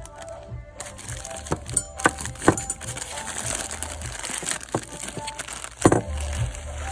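Background music, with several sharp clicks and light rattles of small metal parts being handled, the loudest click near the end.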